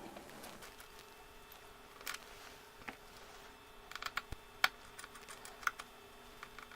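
Small clicks and taps of a precision screwdriver and tiny screws being removed from a tablet's circuit board, a few sharp ticks clustered about four seconds in, over a faint steady electric hum.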